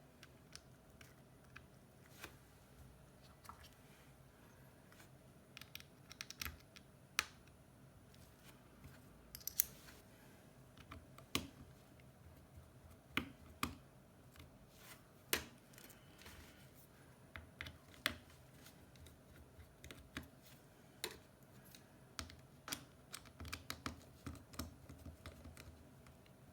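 Scattered light clicks and taps, irregular and a few at a time, of small repair tools and parts being handled on an iPhone 7, with one brief scrape near ten seconds.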